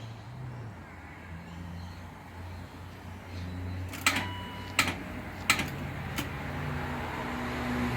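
Four sharp clicks about two-thirds of a second apart over a low steady hum, as a BMW E36 with a flat battery fails to start.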